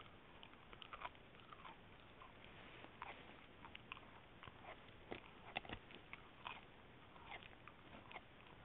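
Dachshund chewing on a piece of cartilage: faint, irregular clicks and crunches of its teeth working the gristle.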